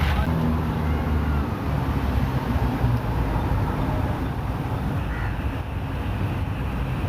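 Steady low rumble of a motor vehicle engine and road traffic running throughout.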